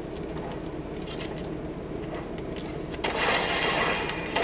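Video game sound effects playing from a TV during a shooter match: a few faint clicks, then from about three seconds in a louder rush of noise, over a steady low hum.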